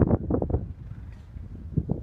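Wind buffeting the microphone in irregular gusts, strongest in the first half second and then easing to a low rumble.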